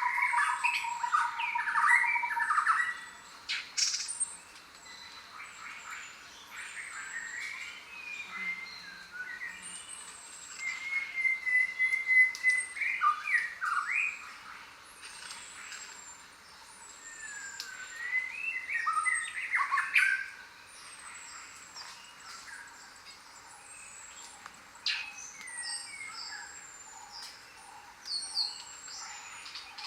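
A chorus of jungle birds calling: many overlapping chirps and whistles in louder bursts that come and go, over thin high falling whistles repeated throughout. There is a rapid trill near the middle.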